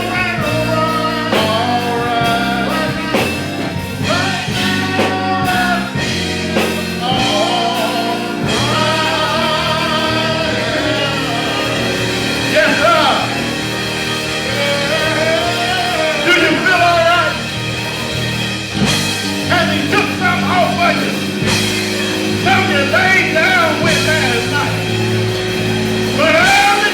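Gospel singing with band accompaniment: a sung melody wavering over held chords and a steady bass line.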